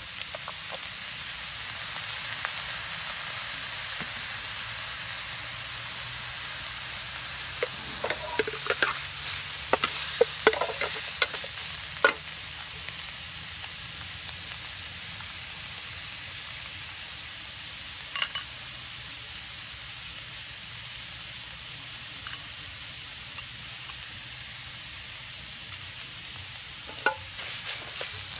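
Yellow spice paste with red chilli sizzling steadily in a nonstick frying pan. A metal spatula scrapes and taps against the pan in a cluster of clicks about a third of the way in, and again near the end.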